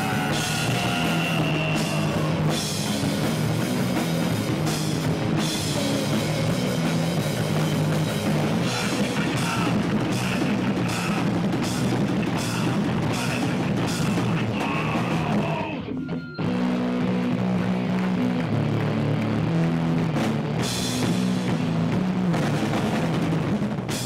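Hardcore punk band playing live: distorted electric guitar, bass guitar and a pounding drum kit, with a vocalist shouting into the microphone. The band stops for a split second about two-thirds of the way through, then crashes back in.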